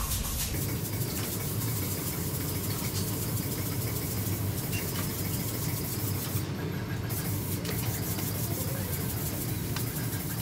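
Industrial blind-stitch sewing machine running steadily as it stitches neoprene wetsuit panels.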